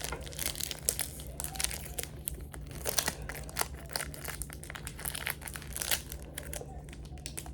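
Foil Pokémon booster pack wrapper crinkling as it is handled and torn open, with many irregular crackles throughout.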